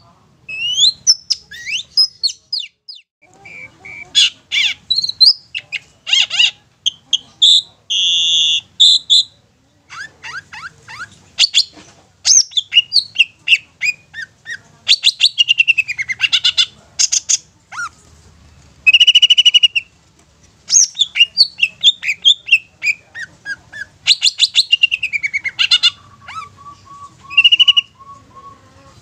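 Long-tailed shrike singing a varied, scratchy song of rapid chattering runs, falling slurred notes and a few clear held whistles, broken by short pauses. Near the end it gives a quick row of about ten evenly spaced lower notes.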